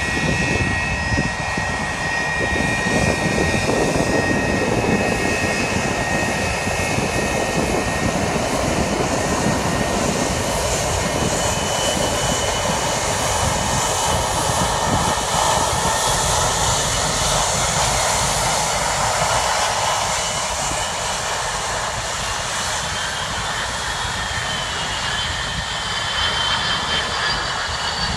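Boeing 767 jet engines during landing: a loud, steady jet roar with a high engine whine that wavers and slides down in pitch near the end.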